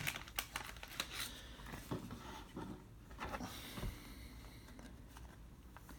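Faint rustling and light clicks of baseball cards and pack wrappers being handled.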